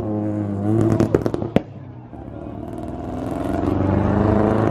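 Car engines running on the road, with a few sharp exhaust pops around a second in; then one car's engine note builds, getting steadily louder as it approaches.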